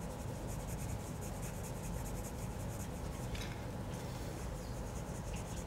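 Prismacolor coloured pencil in pumpkin orange shading on paper: a soft, steady scratching made of many short back-and-forth strokes.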